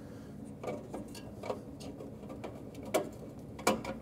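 Light metallic clicks and ticks of a Phillips screwdriver and sheet-metal screw being set into the evaporator coil's sheet-metal bracket: a loose scatter of small clicks, the two loudest about three seconds in and near the end.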